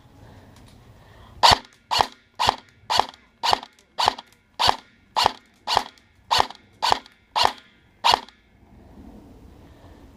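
Airsoft gun fired on semi-auto, about a dozen sharp shots at an even pace of roughly two a second, stopping about eight seconds in.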